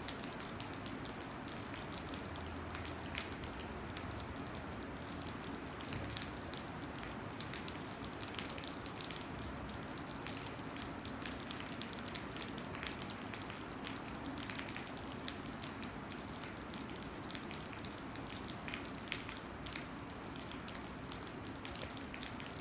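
Steady rain falling, with many individual drops tapping irregularly close by over an even hiss.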